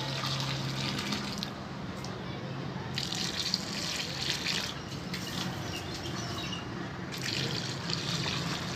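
A stream of water pouring and splashing into a large aluminium pot of rice and chicken broth, swelling three times, over a low steady hum. The water tops up the cooking liquid, which was a little low, before the pulao goes on dum.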